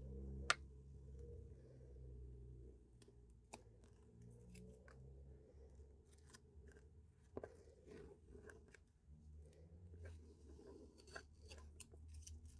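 Faint crackling and scattered clicks of washi tape being peeled off the paper edges of a painting, with one sharper click about half a second in.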